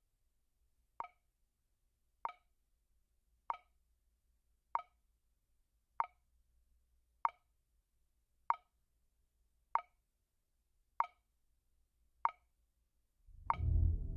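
Film-score ticking: a single sharp, clock-like tick repeating evenly about every 1.25 seconds, eleven times. About a second before the end, low sustained notes swell in beneath the ticks.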